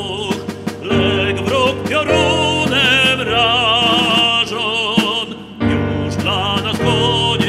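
A classically trained tenor singing with strong vibrato over piano accompaniment, in sung phrases with a short break about five and a half seconds in.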